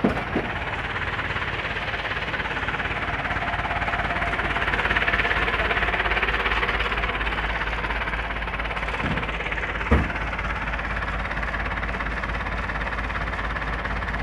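Mitsubishi truck's diesel engine running hard under load while stuck in deep mud, a steady low rumble that swells louder around five seconds in. A sharp knock sounds at the start and another about ten seconds in.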